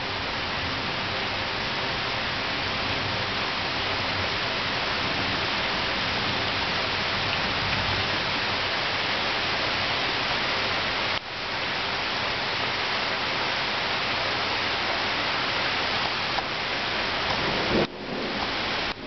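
Heavy rain falling steadily in a thunderstorm, a dense even hiss with low rumbles of thunder beneath it. The sound briefly cuts out twice, once near the middle and once near the end.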